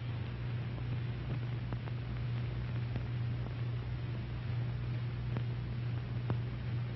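Steady low hum and hiss from an old film soundtrack, with a few faint clicks.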